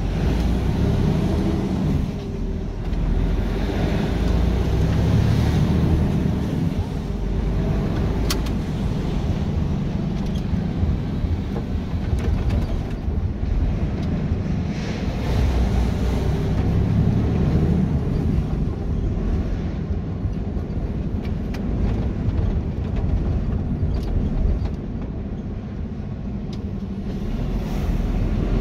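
Truck running on the road: steady low engine and road noise that swells and eases a little, with a few faint clicks.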